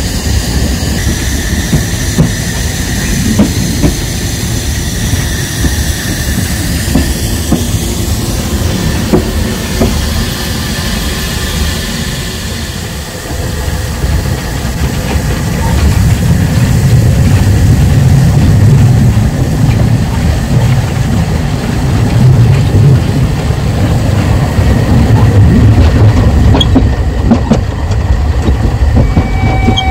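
Narrow-gauge train behind a Saxon IV K steam locomotive running on the rails, heard from the carriage: wheels clattering with a thin squeal in the first half, then a louder, heavier rumble from about halfway. The locomotive's steam whistle starts right at the end.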